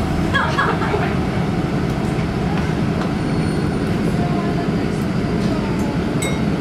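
City bus heard from inside the passenger cabin: a steady low drone of the engine and running gear, with a faint click or rattle near the end.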